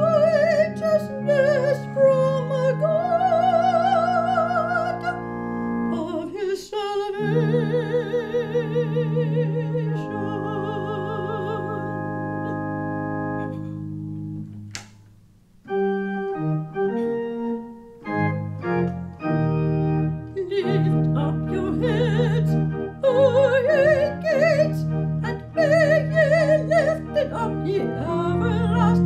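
Female soloist singing with a wide vibrato over organ accompaniment in sustained chords. About halfway through, the music nearly stops for a moment, then the organ comes back in and the voice rejoins it.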